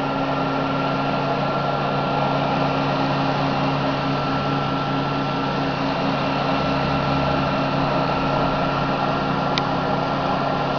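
Hemp-lime spraying rig running steadily: a constant machine hum and whine over the hiss of the material jetting from the spray nozzle. A faint tick about nine and a half seconds in.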